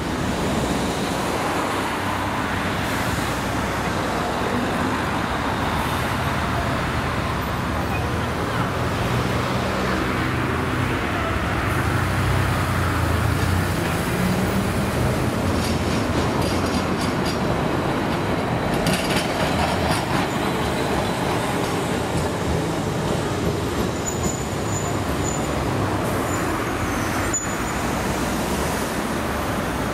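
Steady city street traffic noise, with road vehicles and a bus running close by in slow traffic.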